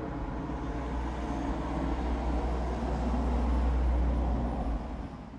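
Road traffic: a vehicle's engine and tyre rumble swells to a peak about four seconds in, then fades away.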